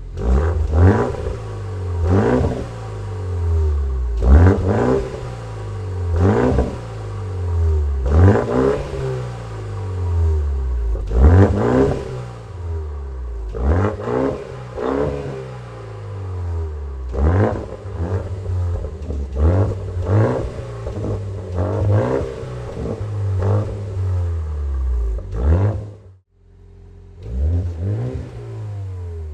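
BMW M135i F70's turbocharged four-cylinder engine revved repeatedly through a Scorpion stainless-steel GPF-back aftermarket exhaust, in short blips about every two seconds, each rising in pitch then falling back. The sound drops out briefly about three seconds before the end.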